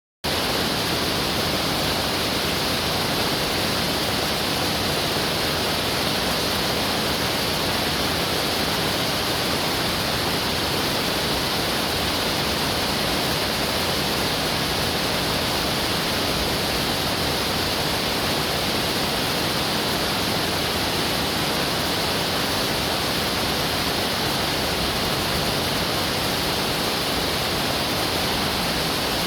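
Waterfall: falling water rushing and splashing in a steady, unbroken wash of sound.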